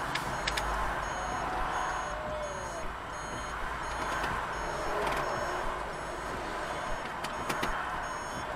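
Traffic rushing past a stopped car, with a faint high-pitched electronic beep repeating steadily and a few sharp clicks.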